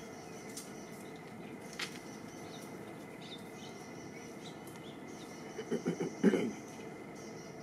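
Outdoor ambience: a steady faint hiss with a thin high hum. About six seconds in, a short run of soft knocks and rustles, the loudest thing heard.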